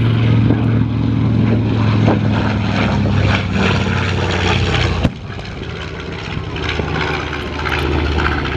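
B-25 Mitchell's twin Wright R-2600 radial engines droning steadily as the bomber flies past. The sound drops abruptly about five seconds in and carries on quieter.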